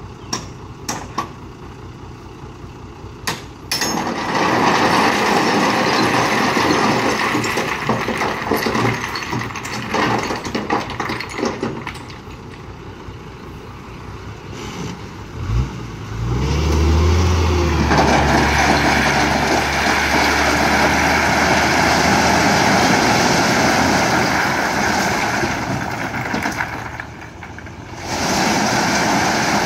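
Dump truck unloading rock: a few sharp knocks, then a loud clatter and rush of stones sliding out over the tailgate. About 15 seconds in, the truck's engine revs up and holds as the hydraulic hoist raises the bed, with the load pouring out of the back.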